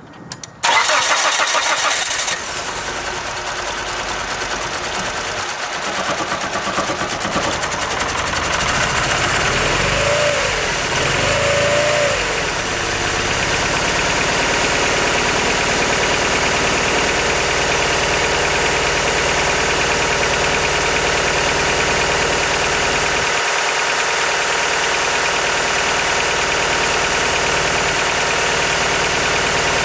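1999 Mitsubishi Eclipse's 420A 2.0-litre four-cylinder engine cranking and catching about half a second in, then running unevenly with a misfire whose cause the owner does not know. Two short rises and falls in pitch come about ten and twelve seconds in, then it settles into a steady idle.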